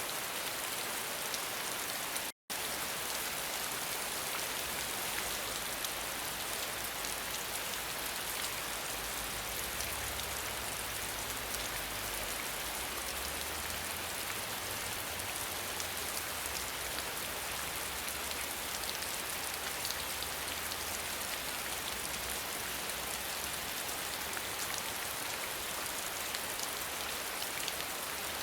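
Steady rain falling, an even hiss of many drops, with a faint low rumble underneath through the middle stretch. The sound cuts out completely for a split second about two and a half seconds in.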